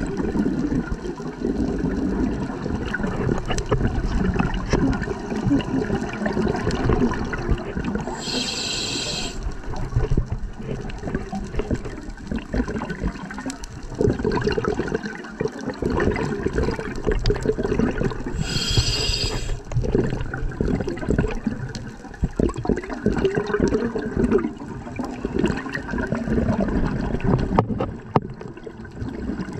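Underwater sound of a scuba diver's breathing through a regulator: a continuous low bubbling rumble of exhaled bubbles, with two short hisses about ten seconds apart as the regulator delivers air on inhalation.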